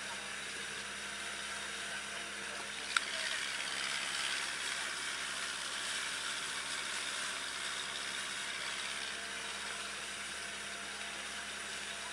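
Outrigger boat under way: its engine runs with a steady drone beneath a constant rush of wind and water. There is one sharp click about three seconds in.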